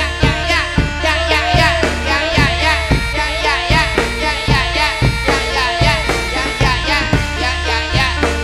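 Javanese jaranan dance music played live, with drum strokes at a steady beat of about two a second under melodic instrument lines and singing.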